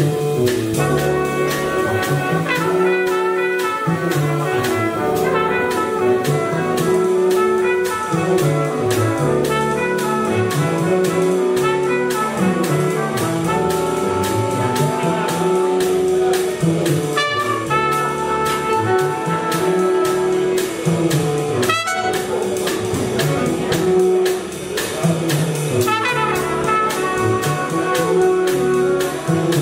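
Live jazz quintet: trumpet and saxophone playing together over upright bass, piano and drums, with long held horn notes and an even cymbal beat.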